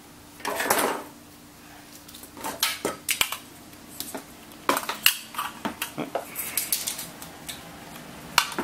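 Plastic and metal clicks and rattles from a headlight wiring connector and a 7-inch LED headlight being handled and fitted: several short runs of clicking and clatter.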